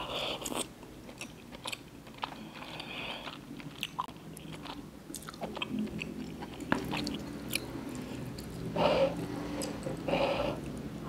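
Close-miked chewing of chewy tteokbokki rice cakes with melted mozzarella: soft wet mouth sounds and many small clicks, with two louder sounds near the end.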